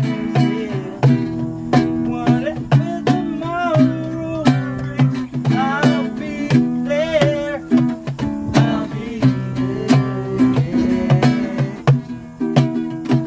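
Acoustic guitar being strummed, its chords ringing between repeated strokes.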